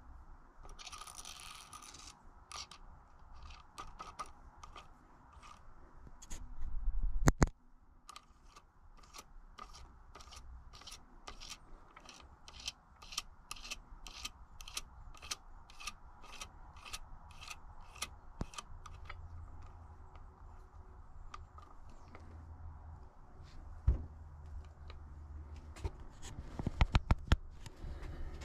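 Metal hand tools working on a mountain bike's suspension linkage during bearing removal and fitting: a hard knock, then a long run of regular clicks about two a second with scraping, and a few sharp knocks near the end.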